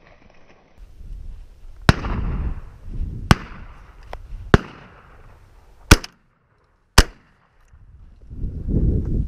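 Shotgun shots: five sharp reports in about five seconds, the last two the loudest and about a second apart, with a low rumble between them.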